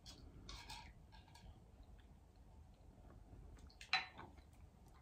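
Faint mealtime sounds of eating and tableware: a few soft clicks in the first second, then a short, louder noise about four seconds in.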